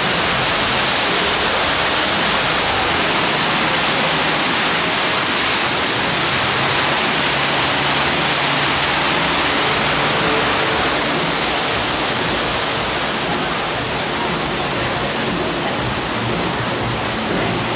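Steady, loud rush of falling water from a man-made waterfall.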